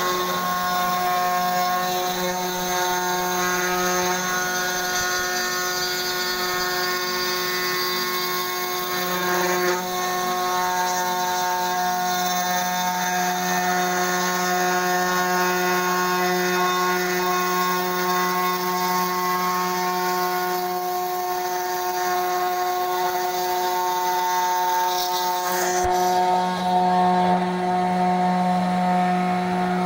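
A CNC router's 500 W spindle with a 3 mm end mill runs steadily as it mills into a coconut half shell's fibrous husk: a constant whine with the hiss of cutting over it. The upper hiss falls away a few seconds before the end while the whine carries on.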